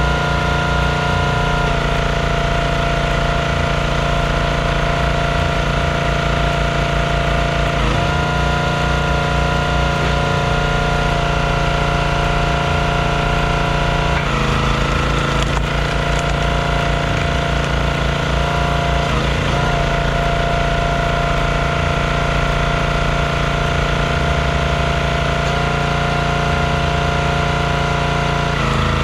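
Small gas engine of a Performance Built hydraulic log splitter running steadily, its note shifting every several seconds as the ram is put under load splitting rounds and then returns.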